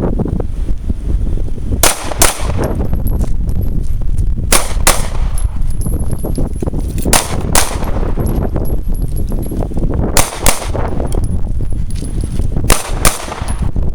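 Pistol shots fired in pairs on a shooting range: five quick double shots, each pair about a third of a second apart, coming roughly every two and a half seconds, over a steady low rumble.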